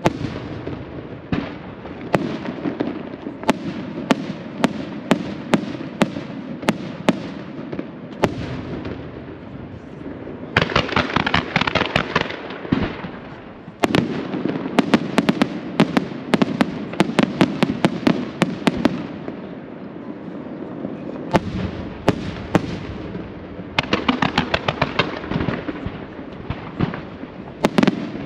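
Aerial fireworks display: repeated sharp shell bursts going off throughout, with two stretches of dense, rapid crackling, one about a third of the way in and one near the end.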